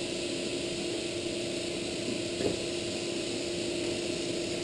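Steady electrical-mechanical hum of operating-room equipment, a constant low tone with a hiss over it, and one small click about two and a half seconds in.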